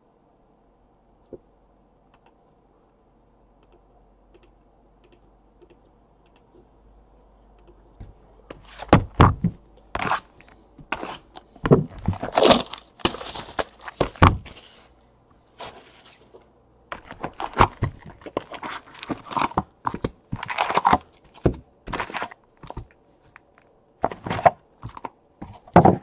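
Cardboard trading-card hobby boxes being handled and opened: after a quiet start, a dense run of sharp thunks, tearing and crinkling of wrapper and cardboard begins about eight seconds in.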